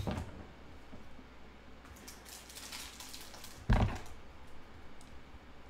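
Plastic trading-card pack wrappers rustling as a stack of Panini Chronicles packs is handled on a table. A single loud, deep thump comes about two-thirds of the way through.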